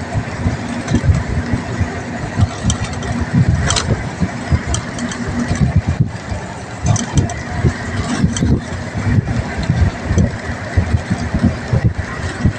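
A road vehicle in motion, heard from inside: engine and road noise with an uneven low rumble. A steady hum runs through the first half and stops about six seconds in, and a few light clicks come and go.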